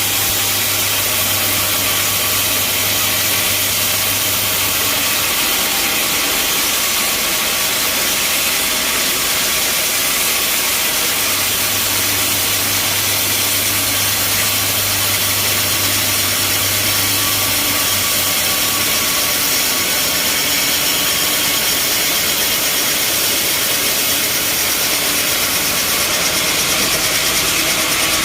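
Band sawmill running steadily, its blade sawing through a large mahogany log with a loud, even hiss; a low hum comes and goes twice.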